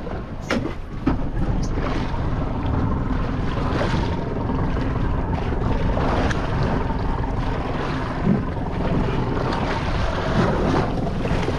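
Wind buffeting the microphone over water sloshing against a small boat's hull, with a few light knocks in the first two seconds.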